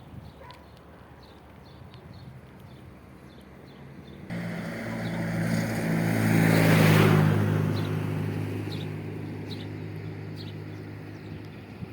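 A motor vehicle passes close by on the road. Its engine hum starts suddenly about four seconds in, swells to a rushing peak near seven seconds, then fades away.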